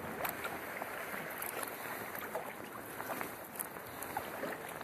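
Sea kayak being paddled on calm water: the paddle blades splash and drip, and water laps along the hull, with many small, sharp drips and plinks throughout.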